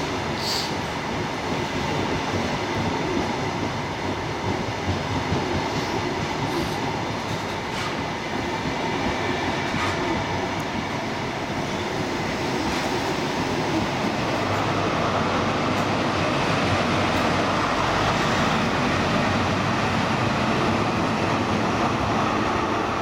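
HST Class 43 diesel power car running under power, with a steady train noise of engine and wheels on the rails. It grows louder and brighter a little past halfway.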